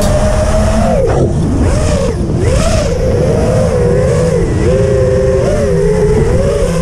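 FPV quadcopter's motors and propellers whining as heard from the onboard camera, the pitch swooping up and down with the throttle and dropping sharply about a second in, over a low rushing noise.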